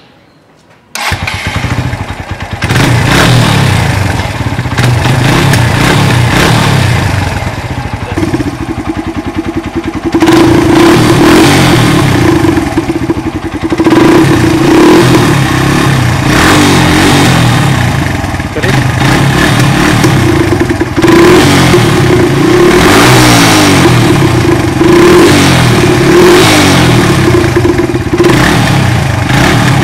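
Motorcycle engine running and being revved over and over, loud. It starts abruptly about a second in. From about a quarter of the way in, a steady pitched tone rides on top of the engine note.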